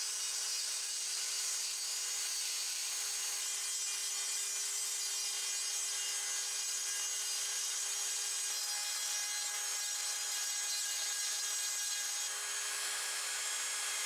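Small high-speed rotary tool running at a steady speed, its fine bit grinding rust out of the stamped marking on a polished hammer head: an even whine over a strong hiss.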